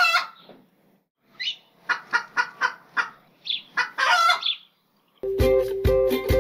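Chicken clucking: a run of short, sharp clucks with a longer call near the end. About five seconds in, plucked ukulele music starts.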